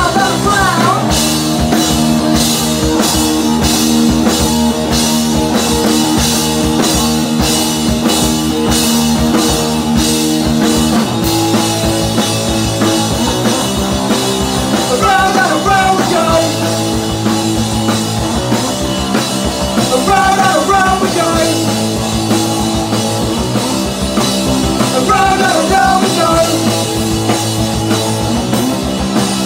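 Punk rock played live on electric guitar and drum kit at full volume, with a steady cymbal beat through the first third. Sung vocal lines come in from about halfway, returning every few seconds.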